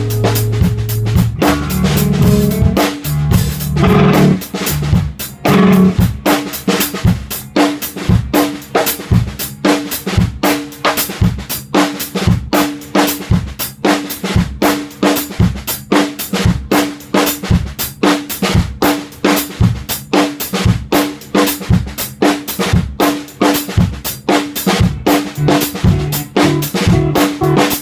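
Acoustic drum kit played in a steady, busy groove, about four hits a second. Electric guitar chords ring over it during the first five or six seconds, then the drums carry on alone.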